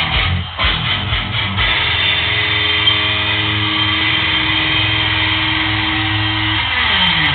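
Guitar playing: choppy strummed chords for the first second and a half, then a long held note that slides down in pitch near the end.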